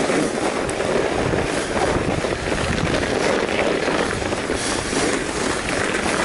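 Steady rushing noise of wind on the microphone mixed with a fat bike's wide tyres rolling over packed snow.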